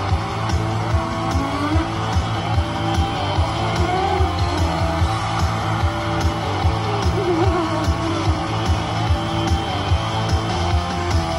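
Slot machine's free-game bonus music: a rock-style tune with guitar over a steady beat.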